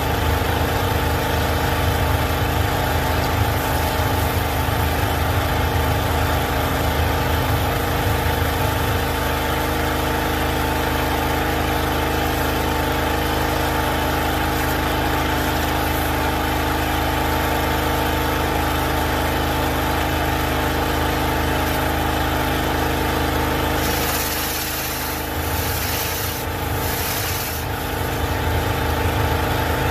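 Easy Kleen Magnum 4000 hot pressure washer's engine and pump running steadily, with the Mosmatic flat surface cleaner spraying and scrubbing a concrete sidewalk. For a few seconds near the end the sound dips and changes, as the cleaner is tilted up off the concrete.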